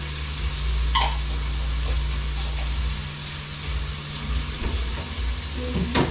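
Tomatoes and onions sizzling in a frying pan, a steady hiss with a low hum underneath. A click about a second in and a utensil knock near the end.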